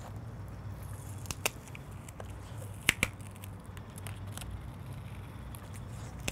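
Handling of laptop screen parts: a few sharp light clicks and taps, the loudest about three seconds in, over a steady low hum.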